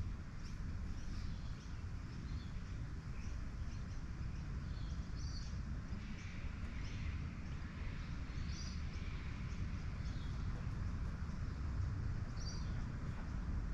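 Outdoor ambience: short, scattered bird chirps over a steady low rumble.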